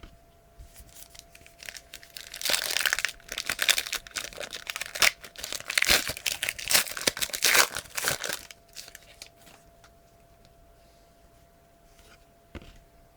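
A trading-card pack wrapper being torn open and crinkled, with dense crackling from about two and a half seconds in until about eight seconds. A few light handling clicks come before and after.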